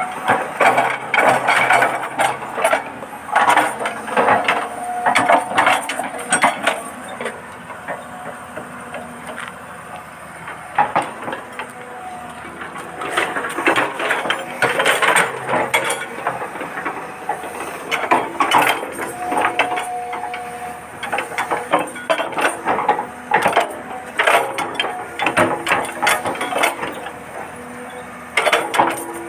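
Huina 1593 RC excavator's small electric motors and plastic gearboxes whirring and clicking in repeated bursts as the arm and bucket are worked.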